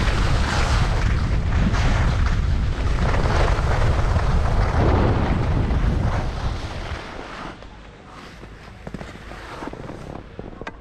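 Wind buffeting the microphone, with skis scraping over packed, chopped-up snow on a downhill ski run. The loud rush drops off sharply about seven seconds in, leaving quieter scraping of skis on snow.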